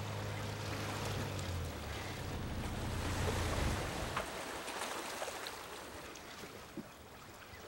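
Cartoon sound effect of water and wind around a sailing boat, with a low steady motor hum that stops about four seconds in: the boat's motor is shut off now that the sails are up. The water and wind sound fades gradually after that.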